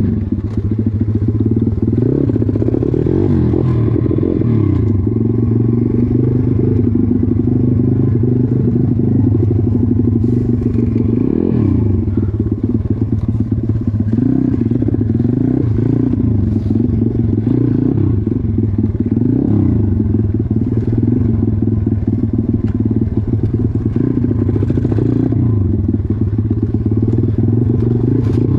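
Stomp pit bike's small single-cylinder four-stroke engine running and revving up and down as the bike is ridden over a rough dirt trail, with scattered knocks from the bike over bumps.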